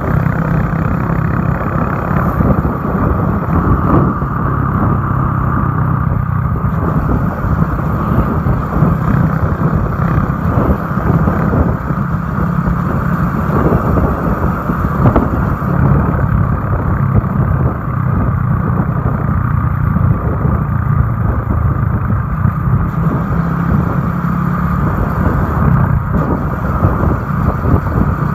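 Motorcycle engine running steadily at road speed, heard from the rider's seat, under a continuous rush of wind and tyre noise.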